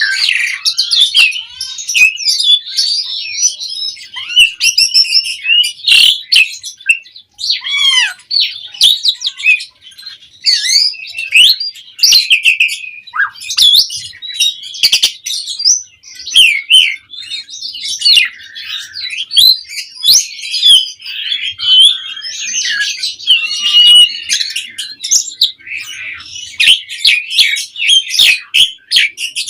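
Asian pied starling (jalak suren) in full song: a loud, unbroken chattering stream of sliding whistles, squeaks and sharp clicks, the kind of call played as a lure (pancingan) to set other cage birds singing.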